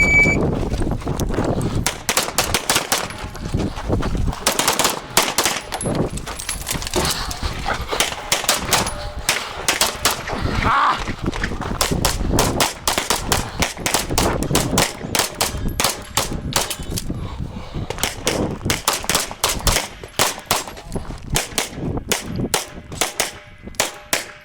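Handgun fire on a practical shooting stage: many sharp shots in quick strings and pairs, with short pauses between strings.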